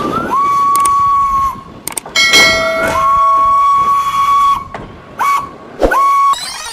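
Train whistle tooting several times: each toot rises quickly to a held pitch, and some are held for over a second.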